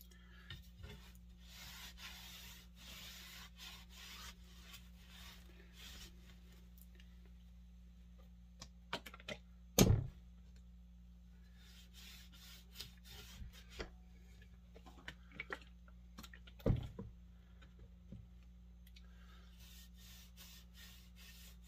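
Oily rag rubbing linseed oil into a wooden axe handle, a soft scrubbing hiss that comes and goes, with small clicks and two sharp knocks about halfway through and again a few seconds later. A steady low hum runs underneath.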